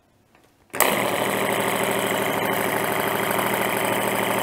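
Small DC-motor-driven rotary vane compressor of an air horn switching on just under a second in and then running steadily with a loud, even buzzing hum. It is fed from a bench supply at about 6 amps, which is not enough to drive it properly.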